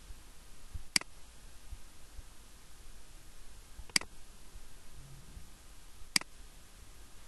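Computer mouse button clicks: three single sharp clicks a few seconds apart, over a faint steady hiss.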